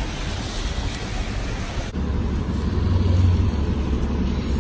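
Wet city-street traffic hiss, then, after about two seconds, the low engine rumble of a Milwaukee County Transit System city bus running at the stop, loudest around three seconds in.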